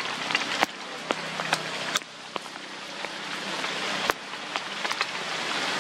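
Rain falling steadily on a lake and the ground around it: an even hiss broken by scattered sharp taps of drops landing close by.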